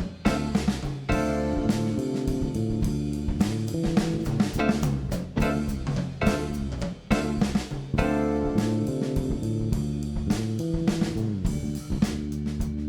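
Live band playing an instrumental passage between sung verses: drum kit keeping a steady beat under bass, guitar and keyboards.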